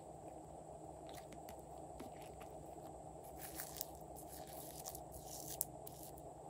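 Slime being handled and squeezed: soft crackling and crunchy clicks in short bursts around the middle and again near the end, over a steady background hum.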